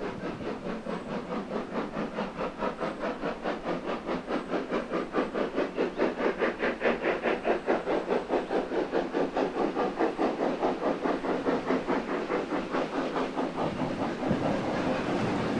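Steam locomotive working under steam, its exhaust beats coming evenly at about four or five a second and growing louder as it approaches. Near the end the beats give way to a steady rush of noise as the train draws level.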